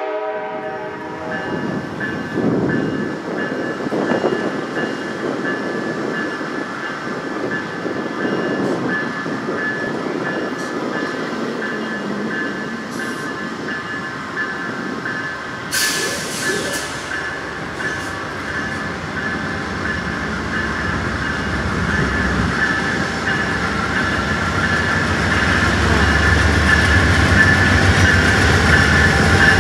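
Amtrak Southwest Chief passenger train, led by GE Genesis diesel locomotives, approaching at slow speed and growing louder. A steady high squeal from the running gear runs throughout, and the locomotives' low diesel rumble builds near the end as they pass close by.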